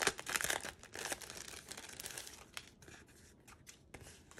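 Clear cellophane sleeve crinkling and rustling as a vinyl sticker sheet is slid out of it, loudest in the first second and fading to a few light crackles after about two seconds.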